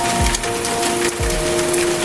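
Steady rain pattering, with soft music of long held notes laid over it and a few low thuds.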